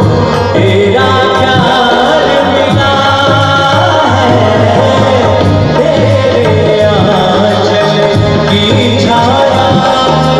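Loud live Chhattisgarhi folk song: a singer's voice over drumming and melodic instruments, keeping one steady rhythm throughout.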